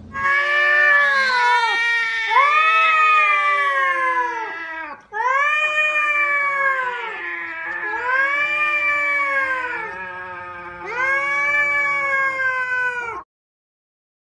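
Domestic cats yowling (caterwauling), the threatening yowl of cats in a standoff: a string of long, drawn-out wails, each rising then falling in pitch, with a short break about five seconds in. The yowling cuts off abruptly about a second before the end.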